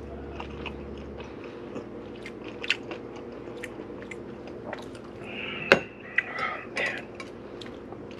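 Chewing and crunching on a crisp fried tostada shell, with scattered small crunches and one sharp crack about five and a half seconds in.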